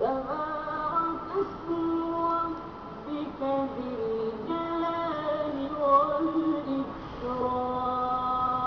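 Quran verse chanted in Arabic by a single voice, a melodic recitation with long held notes and slides in pitch.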